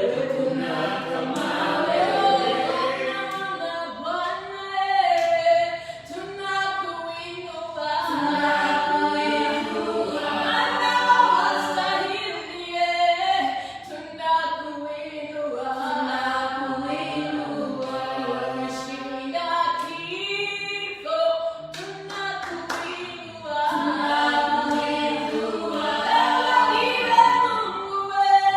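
A church praise team singing a praise song together in harmony, voices carrying the tune with little or no instrumental backing.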